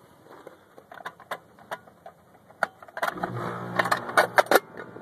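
Clicks and knocks of the outdoor disconnect pull-out being handled and pushed back in, then about three seconds in the 19-year-old Tempstar condensing unit starts up with a steady hum. Several sharp clacks come near the end.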